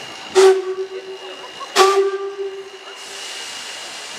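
Steam locomotive whistle giving two blasts, the second about a second and a half after the first. Each blast opens with a sharp burst of steam hiss and then holds one steady tone for about a second.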